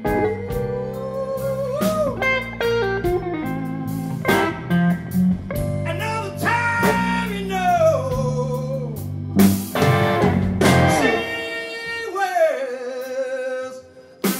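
Live blues band playing, with electric bass and drums under a bending, wavering lead line and a loud crash about two-thirds of the way through. Near the end the bass and drums drop out, leaving one held, wavering note.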